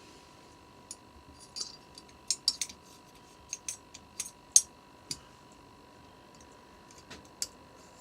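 Small sharp clicks and taps of metal carburettor parts being handled on a bench: a quick run of them in the first five seconds, then one more near the end.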